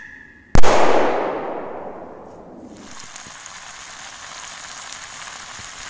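A firework rocket bursts with a loud bang about half a second in, its echo dying away over a couple of seconds. From about three seconds in, food sizzles steadily as it fries.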